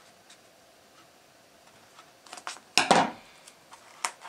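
Scissors cutting a corner off clear self-adhesive laminate film and being laid on the table: a few light clicks, one louder crisp snap and crinkle about three seconds in, and a sharp click near the end.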